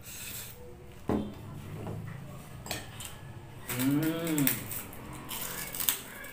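Mukbang eating sounds: a ceramic bowl knocks down onto a wooden table about a second in, then chewing and mouth noises. Around four seconds a closed-mouth 'mmm' rises and falls in pitch, and near the end there is crisp crunching of pork rinds.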